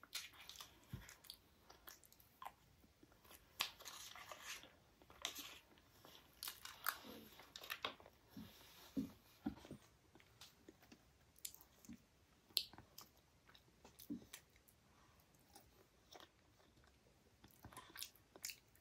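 Close-miked chewing and wet mouth clicks of someone eating soft, syrupy Indian milk sweets such as rasmalai and sandesh, an irregular run of short sharp sounds with the sharpest one a little past the middle.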